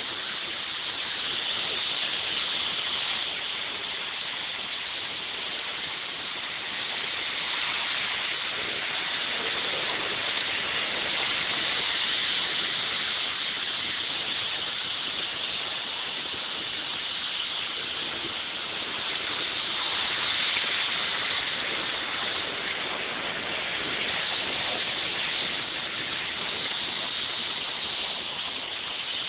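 Electric model train running on its track: a steady high whirring hiss of wheels and motor that swells and eases slightly.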